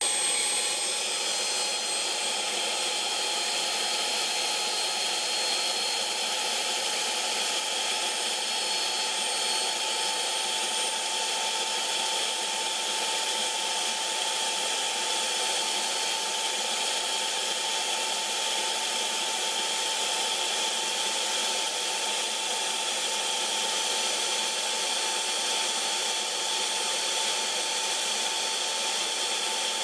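Small electric air compressor running steadily, an even mechanical rush with a constant whine that holds one pitch and does not change.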